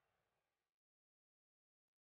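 Near silence: a very faint hiss fades out within the first second, leaving dead silence.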